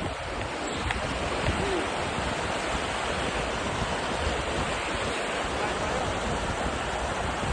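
River water rushing steadily, with a low, unsteady rumble underneath.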